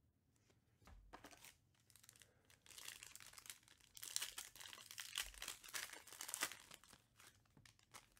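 Foil wrapper of a Panini Prizm UFC hobby pack being torn open and crinkled, the crackling growing louder from about three seconds in.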